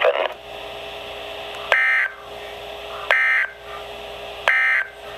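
Three short bursts of NOAA Weather Radio SAME digital data, each a raspy warbling tone about half a second long, spaced about a second and a half apart, over steady radio hiss and a constant hum. These are the end-of-message code that closes an Emergency Alert System warning.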